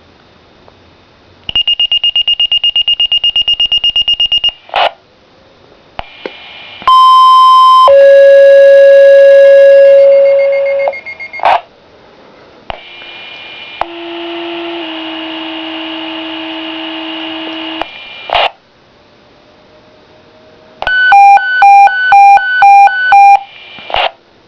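Minitor V fire pager sounding a dispatch. First a fast pulsing high tone, then a sequential two-tone page: a short higher tone followed by a long, loud lower tone. A second pair of tones follows, and near the end the pager's own alert beeps about six times.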